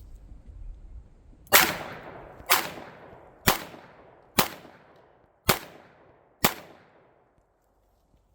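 Dan Wesson revolver fired six times, double action, about one shot a second, each shot with a short ringing tail.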